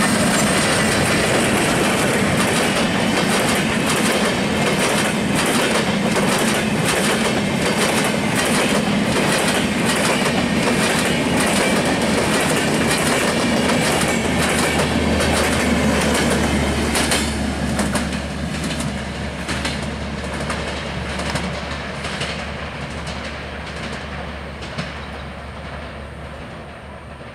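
Diesel-electric locomotive and passenger coaches of a fast train passing close by, wheels clattering over rail joints in a rapid clickety-clack. The train stays loud for the first two-thirds, then fades as the last coaches and the power car run away down the line, with a low steady hum under the fading clatter.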